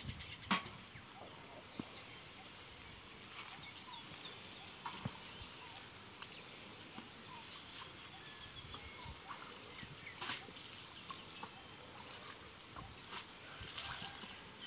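Water sloshing and splashing now and then in a concrete tank as a young elephant works her trunk in it, drawing water up, with short faint chirps in the background. A single sharp knock about half a second in is the loudest sound.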